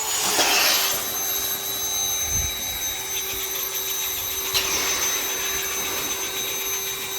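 Electric air pump running with a steady whine, inflating an inflatable pool, with a short rush of hiss about half a second in.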